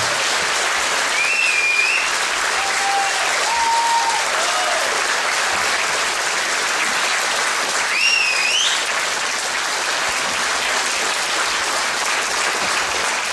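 Audience applauding steadily for a live rock band, with a few high whistles and shouts rising above the clapping, the loudest whistle rising in pitch about 8 seconds in.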